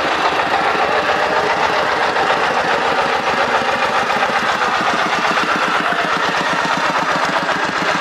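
Diesel engine of a Komatsu PC50-2 mini excavator running steadily after being started.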